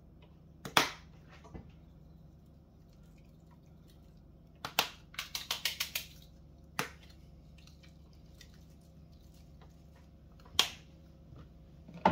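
Sharp clicks and taps of seasoning shakers being handled and shaken over a cooking pot. One click comes about a second in, a quick run of about seven taps follows in the middle, and single clicks come near seven and ten and a half seconds, over a faint steady low hum.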